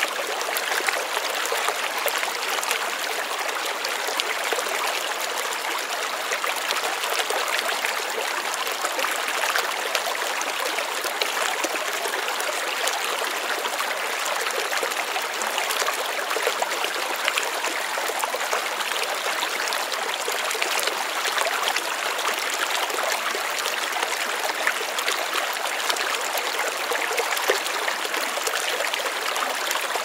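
Shallow stream running over a rocky bed, a steady rush of water with fine splashing and trickling from small riffles.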